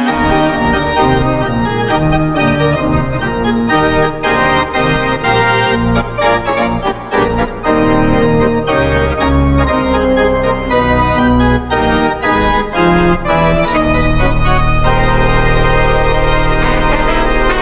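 Arena organ playing a quick run of notes in the goal celebration after the horn, then holding a chord with steady bass from about 14 seconds in.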